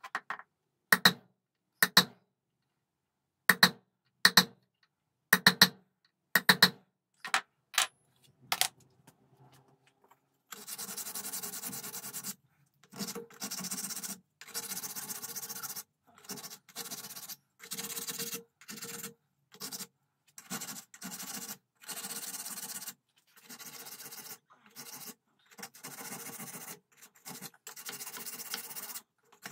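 About ten sharp hammer blows on steel, each ringing briefly, over the first eight or nine seconds, the first ones loudest. Then a hand file rasps on the steel rifle barrel in long strokes, roughly one a second, with short pauses between them.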